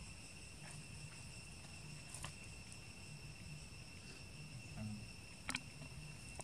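Insects droning steadily, a thin high-pitched whine, over a faint low outdoor rumble. Two brief sharp clicks, about two seconds in and again at about five and a half seconds.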